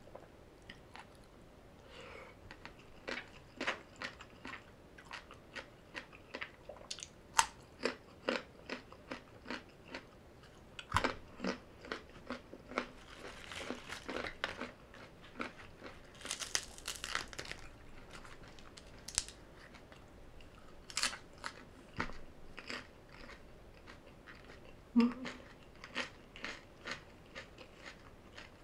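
Close-miked eating: biting and crunchy chewing of green papaya salad and crisp vegetables, a run of sharp crunches with a denser stretch of crisp crunching near the middle.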